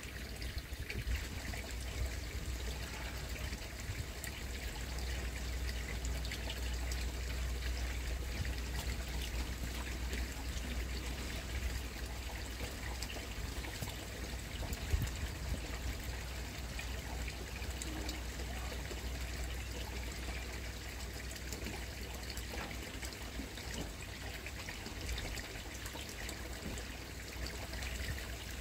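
Koi pond water trickling steadily, with a constant low hum underneath.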